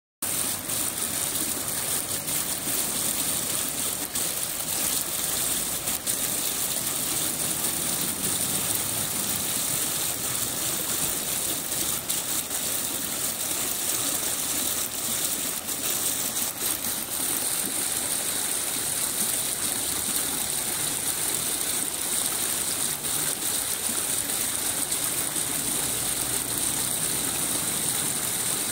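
A row of foaming fountain jets in a shallow water channel, water gushing and splashing steadily.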